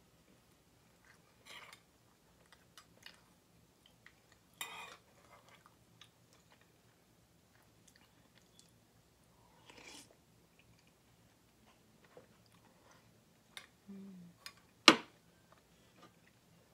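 Close-up eating sounds: scattered chewing and mouth noises as spoonfuls of molokhia stew are eaten. A brief low hum comes about 14 s in, and a sharp clink of a utensil against the dish comes about a second later, the loudest sound.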